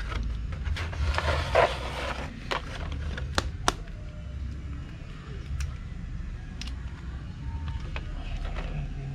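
Scattered light metal clicks and ticks as hands work at the mounting bolt and spring of a motorcycle's side stand, two sharp ones close together a few seconds in, over a low steady rumble.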